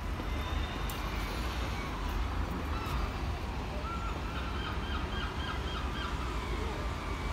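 City street ambience: a steady low traffic rumble, with a quick run of about seven chirps or beeps a little past the middle.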